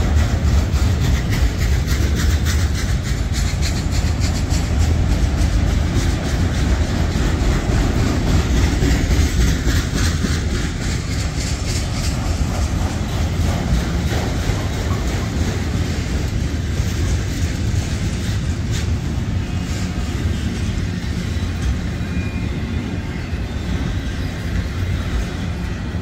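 Freight train of autorack cars rolling past: a steady low rumble with rapid clicking and clacking of steel wheels over the rail joints, easing slightly near the end.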